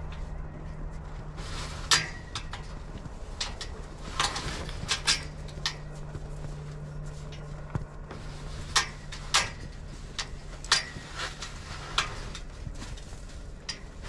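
Steel tube farm gate clanking and rattling in a series of sharp, irregular knocks as it is handled and swung, over a steady low hum.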